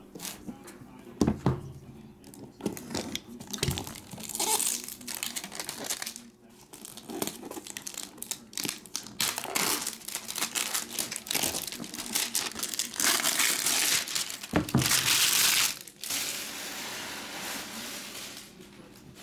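Plastic shrink wrap crinkling and tearing as it is stripped off a trading-card box by hand, with a longer, louder stretch of tearing about two-thirds of the way in.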